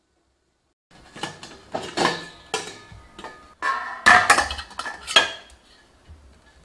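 Stainless steel steamer plate and steel serving plate clinking and knocking against each other as steamed idiyappam is tipped out. There is a series of sharp metal clinks with brief ringing, starting about a second in.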